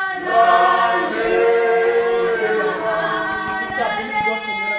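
A choir of voices singing without instruments, in long held notes that change pitch every second or so.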